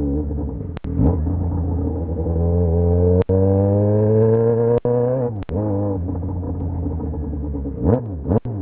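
Yamaha XJ6 motorcycle's 600 cc inline-four engine running strong, rising steadily in pitch as it revs up, then dropping back, with quick rises and falls near the end. Several very brief breaks interrupt the sound.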